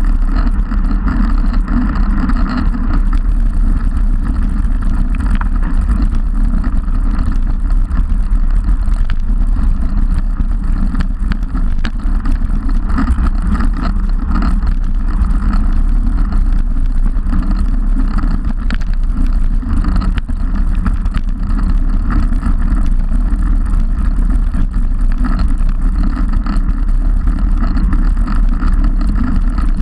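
Steady wind buffeting the microphone of a handlebar-mounted camera on a road bike riding at speed, a loud low rumble, mixed with the hiss of tyres on tarmac and a few faint clicks.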